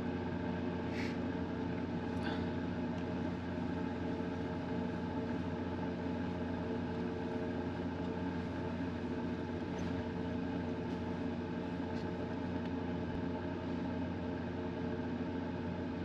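Steady mechanical hum of a running motor or engine, holding one even pitch throughout, with a couple of faint ticks in the first few seconds.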